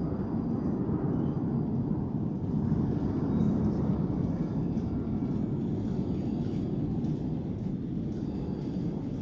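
Fighter jet passing unseen overhead, heard as a low rumble that swells about three to four seconds in and then slowly fades.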